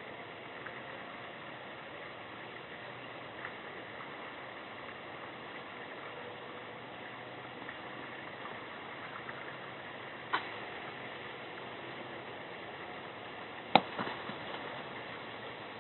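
Steady outdoor hiss with two sharp clicks, one about ten seconds in and a louder one near the end that is followed by a few faint ticks.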